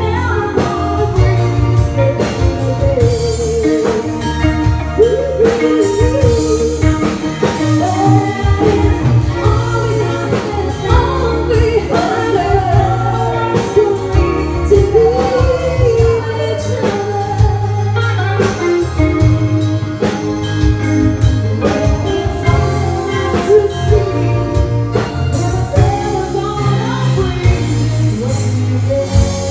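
Live band playing a song: vocals sung over keyboard, electric guitar, bass and a drum kit with a steady beat.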